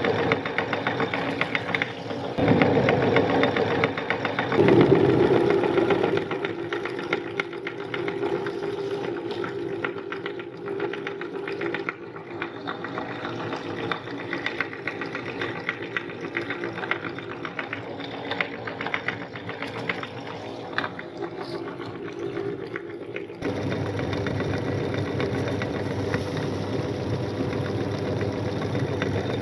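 Meat grinder running as it grinds a square cookie into crumbs: a steady motor hum with crackling from the cookie being crushed, loudest in the first few seconds as the cookie goes in. Near the end the sound turns to a smoother, even hum.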